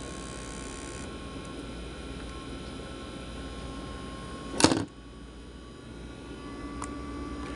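CoolCold fan running with a steady vibrating hum and whine, the loud vibration noise the fan has developed. A single loud click a little past halfway, after which the hum drops for a moment and then comes back up.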